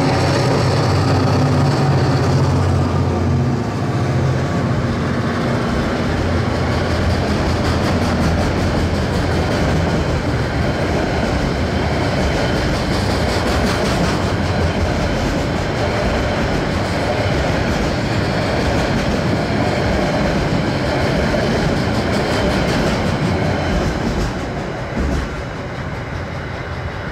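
Two KiwiRail DC-class diesel-electric locomotives passing under power, their engine drone strong for the first few seconds, followed by a long rake of loaded container wagons rolling by with a steady rumble and clickety-clack of wheels over the rails. The noise fades near the end as the last wagon goes by.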